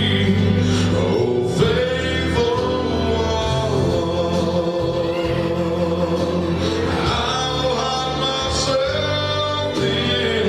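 Live gospel music: a slow song with long, gliding melody notes over a band accompaniment.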